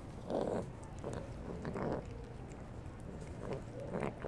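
Stray tuxedo cat chewing wet food and making odd beast-like noises as it eats, in about five short bursts.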